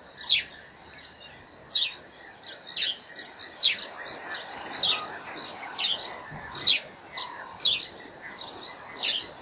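A bird calling over and over, a short high note repeated about once a second, over faint outdoor background noise.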